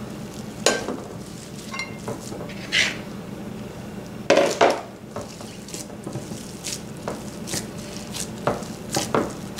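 Plastic mixing bowl knocking against a glass baking dish as raw meatloaf mixture is turned out, then soft pats and squishes of hands pressing the meat into the dish. The loudest knocks come about four seconds in, with a steady low hum underneath.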